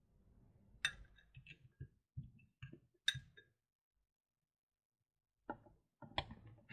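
Quiet handling sounds: a metal fork clicks sharply twice against a ceramic bowl while a ladyfinger is soaked in green tea syrup. Near the end come a few soft knocks as the soaked ladyfinger is laid into a plastic container.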